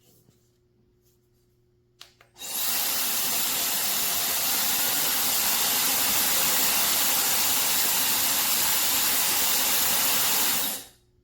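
Ionic hair dryer switched on with a click about two seconds in, blowing steadily for about eight seconds, then switched off near the end.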